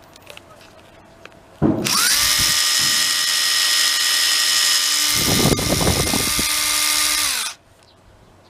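Makita cordless impact driver's motor run without load: it spins up about two seconds in, holds a steady high whine for about six seconds, then winds down. A brief rattle joins it about five seconds in.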